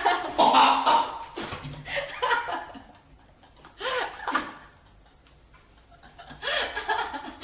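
People laughing, with short non-word vocal sounds coming in several bursts separated by brief pauses.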